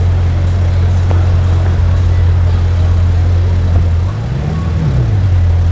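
Bugatti Divo's quad-turbocharged 8.0-litre W16 idling with a steady low hum, then revved once about four seconds in, the pitch rising and falling back.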